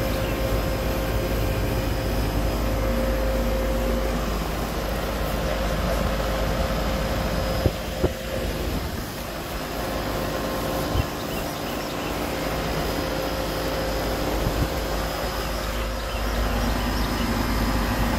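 Goodman CKL36-1H central air-conditioning condensing unit running: compressor and condenser fan giving a steady hum, which the owner takes to mean that the outdoor unit is working with no issues. A few brief knocks come about eight and eleven seconds in.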